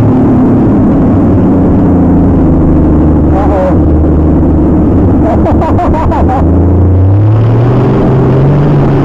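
Off-road mud truck engine running loud and steady, then revving up about seven seconds in, its pitch climbing toward the end.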